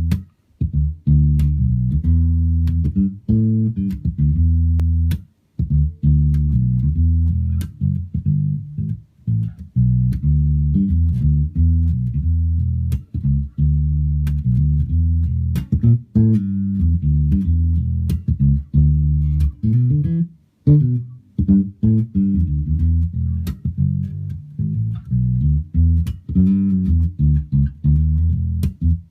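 Fender Precision Bass Plus electric bass playing a continuous run of low plucked notes, each with a sharp attack. The playing breaks off briefly about five seconds in and again about twenty seconds in.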